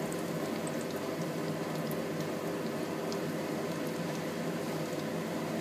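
Hot oil sizzling steadily around breaded potato balls deep-frying in a pot, with scattered small crackles.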